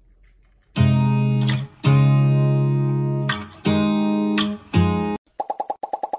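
Background music: acoustic guitar strumming chords, four strokes each left ringing, then a quick run of short muted notes near the end.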